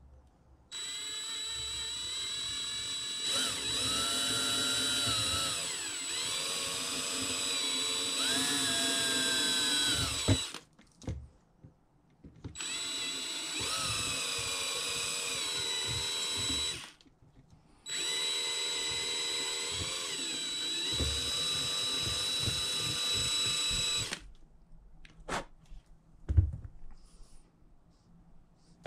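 DeWalt cordless drill running a small bit into the bone of a deer skull in three long runs, its motor whine dipping and rising in pitch as the trigger and load change. A couple of short knocks follow near the end.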